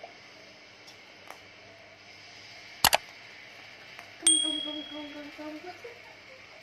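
A quick double mouse click, then about a second and a half later a bright bell ding that rings and fades within half a second: the sound effect of a subscribe-button animation.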